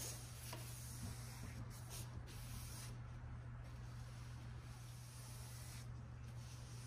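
Paintbrush bristles swishing in repeated strokes as paint is brushed onto the base of a kitchen island cabinet, over a low steady hum.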